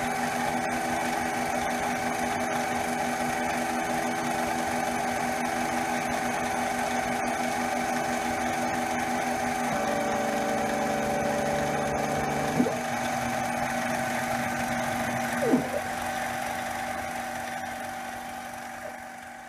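CNC-converted mini lathe running with its spindle motor and stepper-motor drives whining steadily while a 2-flute end mill bores aluminum. About halfway through, the stepper tones change pitch, and two brief sliding-pitch chirps follow later as the axes move. The sound dies away near the end.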